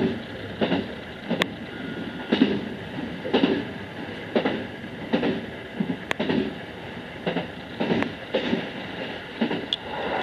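A JR West 221 series electric train running, heard from inside the train: steady rolling noise with a short burst of sound repeating about once a second.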